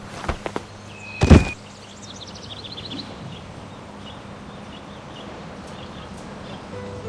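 Cartoon sound effects: a few quick footsteps, a loud thump about a second in, then a short run of quick high chirping notes over a steady background hiss.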